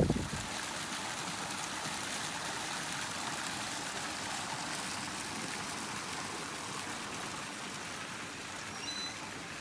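Small garden waterfall pouring into a pond, a steady splashing rush of water.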